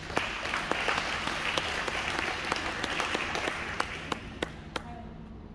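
Audience applauding: clapping that starts suddenly, holds for about four seconds, then thins out to a few last separate claps and dies away.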